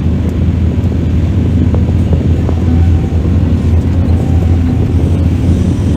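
Mining excavator's diesel engine running steadily, a deep continuous drone, with a few faint clicks over it.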